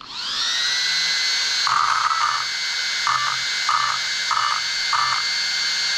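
Three small electric cooling fans on an RC car, the ESC fan and two motor heatsink fans, switched on and spinning up with a rising whine, then running at a steady high whine with an airy hiss. Short buzzing tones repeat about every half second over the fan noise.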